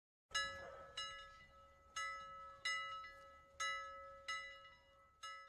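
Intro music of struck bell-like notes: seven strikes at uneven spacing, each ringing and fading out before the next.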